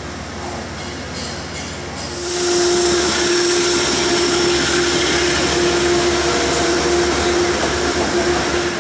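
Metro-North GE P32AC-DM diesel locomotive passing directly below, its engine running with a strong steady tone over the rumble of the train. The sound swells loud about two seconds in and stays loud as the locomotive and the first cars roll underneath.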